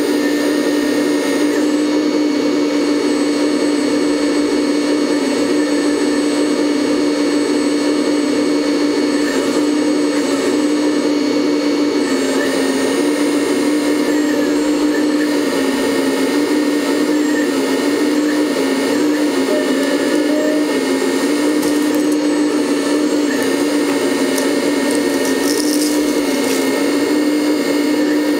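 Hydraulic pump of a 1/14-scale RC hydraulic excavator running steadily, a motor-driven whine whose pitch dips and steps slightly as the boom and bucket are worked.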